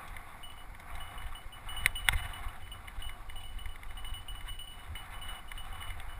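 Mountain bike ridden over a bumpy dirt singletrack, heard from a camera mounted on the bike: a steady metallic rattle and clink of the bike and mount over a low rumble from the microphone. Two sharper knocks about two seconds in.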